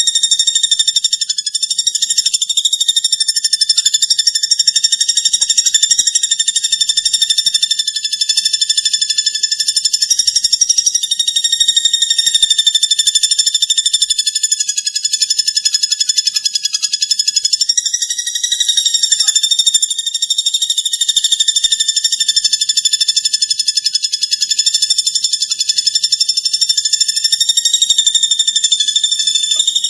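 Continuous high, very fast buzzing trill from a platuk bawang (common flameback woodpecker) call recording, run on without pause. Pitch lifts briefly about two-thirds of the way through.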